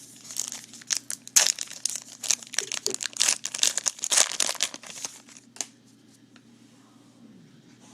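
A trading-card pack wrapper being torn open and crinkled, a dense run of crackling from about half a second in until nearly six seconds, then quiet.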